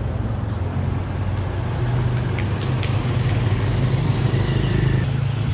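Motorcycle engine idling steadily, with a few light clicks about two and a half seconds in.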